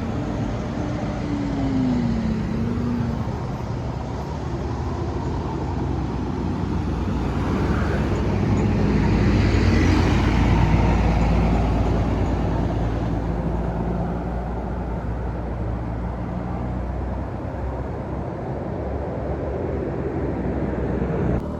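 Roadside traffic: a large vehicle passes close by, its engine rumble and tyre noise building to a peak about ten seconds in and then fading, with other engines running steadily afterwards. A short pitch that rises and falls sounds in the first few seconds.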